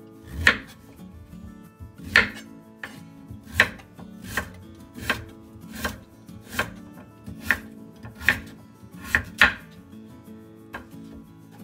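Chef's knife chopping a raw peeled sweet potato into chunks on a wooden cutting board: about a dozen sharp strokes, roughly one a second, each knocking through onto the board.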